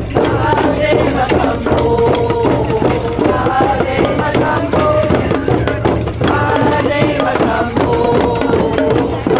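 A group drum circle of hide frame drums struck with padded beaters, djembes and small hand drums, all beaten together in a steady rhythm, with voices singing along over the drumming.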